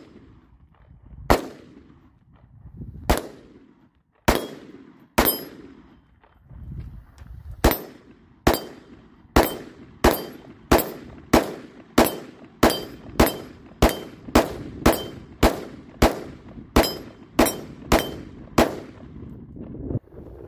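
AR-15 semi-automatic rifle fired about twenty times. A few spaced shots come first, then after a short pause a steady string of shots, roughly one and a half to two a second. Each shot trails off in a brief echo.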